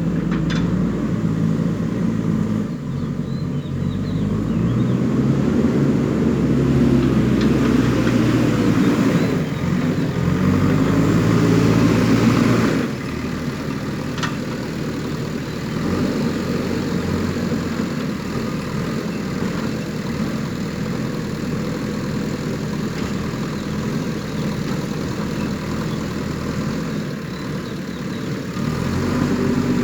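Diesel engine of a JCB backhoe loader working under load, its revs rising and falling as it digs and loads soil. It runs louder for several seconds, then drops back to a lower, steadier run about 13 seconds in.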